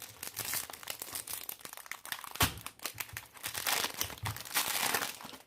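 Plastic wrap crinkling as it is handled and pulled off a new QiYi Skewb puzzle, in irregular crackles and small clicks, with one sharp click about two and a half seconds in.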